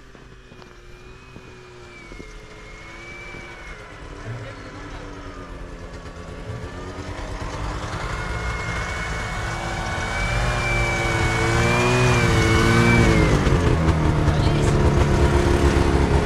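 Buran snowmobile's two-stroke engine revving as it climbs a steep snowy slope, its pitch rising and falling with the throttle and growing steadily louder as it comes closer.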